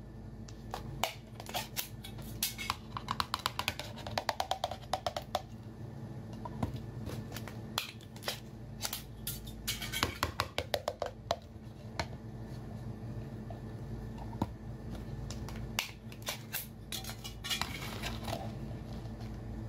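Food being tipped out of glass containers onto dark ceramic platters: the glass taps and clinks against the plate, with quick runs of clicks in several bursts over a steady low hum.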